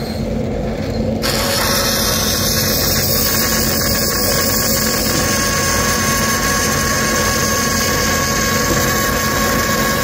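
Contour band saw blade cutting a straight line through aluminium plate at 60 m/min. About a second in the blade bites, and a steady hiss with a high whine rises over the machine's running hum and holds.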